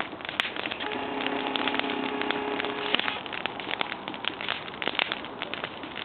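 Wood fire crackling with dense, irregular pops. A steady droning tone runs under it for about two seconds early on.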